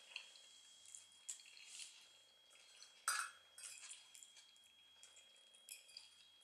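Quiet chewing and wet mouth sounds, with a fork scraping and clicking against a plate; the loudest sound comes about three seconds in.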